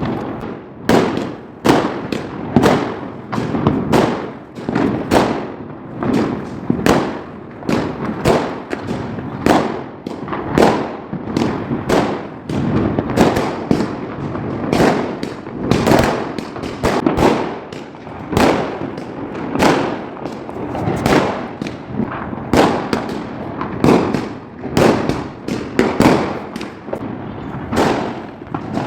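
Fireworks and firecrackers bursting continuously, a sharp bang about twice a second over an unbroken crackle and rumble of other explosions.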